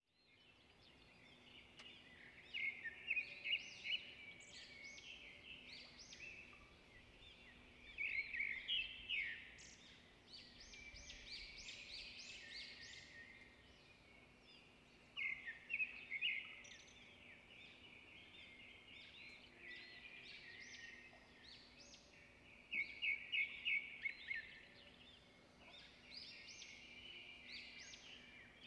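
Birds chirping and singing, with four louder bursts of rapid trilled notes spread through, over a faint steady low hum.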